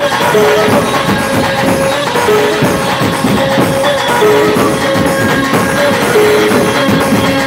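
Dhumal band music: hand-carried drums play a dense beat under a melody of short held notes that repeats about every two seconds, loud and steady.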